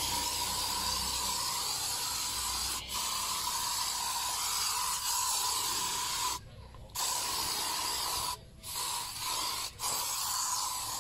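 Spray nozzle hissing in bursts: one long spray of about six seconds, then several shorter ones with brief stops between, carrying a faint steady whistle.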